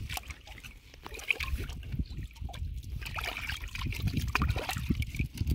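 River water sloshing and trickling around a fish net as it is lowered into the water beside a boat, with scattered small knocks.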